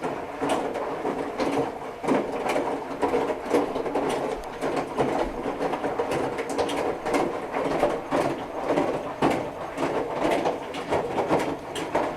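Whirlpool Duet Sport front-load washer's drum turning through a wash tumble, the wet load and water falling and knocking inside in a dense, uneven clatter. It starts abruptly and stops just after the end, when the drum pauses.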